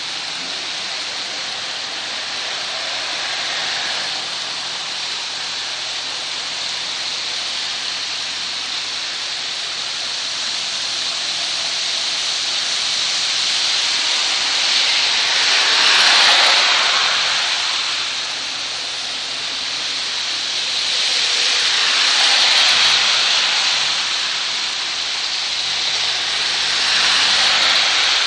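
Heavy rain falling steadily on a street, with three cars passing one after another on the waterlogged road, each swelling and fading as its tyres throw up water: around the middle, a few seconds later, and near the end.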